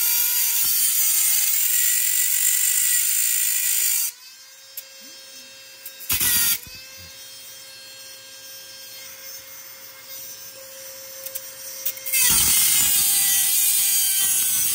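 Flex-shaft micro motor, turned down in speed, driving a Dremel abrasive cutoff wheel as it grinds through a steel utility knife blade to shorten it. About four seconds in the wheel comes off the steel and the motor runs free with a steady whine, touches the blade briefly about two seconds later, and cuts into it again about twelve seconds in.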